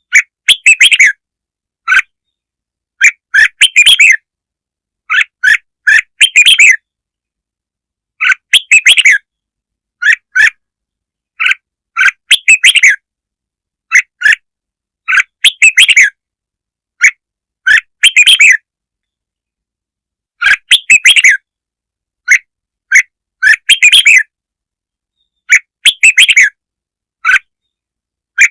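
Red-whiskered bulbul song: short, loud chirpy phrases, one every second or so, separated by dead-silent gaps.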